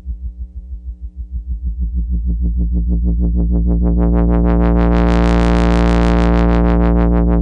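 Low buzzy pulse wave through a self-oscillating breadboard transistor lowpass filter, its cutoff swept by an LFO into a fast, even wobble several times a second. It grows louder and brighter over the first few seconds as the pulse is mixed back in, then holds steady.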